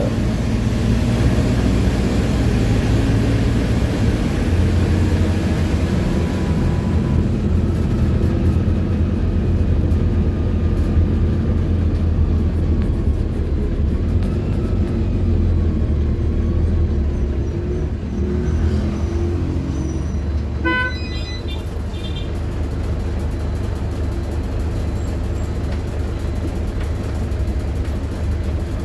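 Inside a moving PAZ 320414 city bus: the engine and road noise drone steadily, the engine's pitch drifting up and down as it drives. A brief horn toot sounds about two-thirds of the way through.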